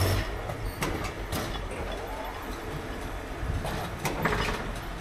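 Heavy dump truck running, a steady low engine rumble with scattered knocks and rattles, a sharp one right at the start and a cluster about four seconds in.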